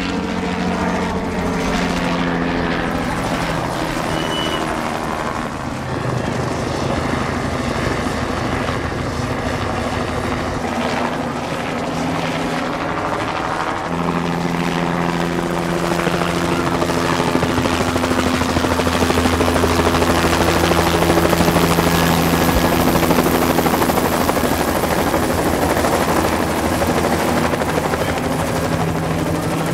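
Two-blade police helicopter flying low overhead, a continuous rotor and engine drone that grows louder about two thirds of the way through as it passes close.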